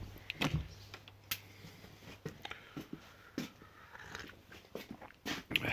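Scattered light clicks and knocks, a few each second, over a faint steady hum.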